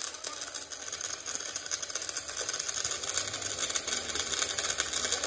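Stick (shielded metal arc) welding on the steel of an excavator bucket: the electrode's arc crackling and sizzling steadily.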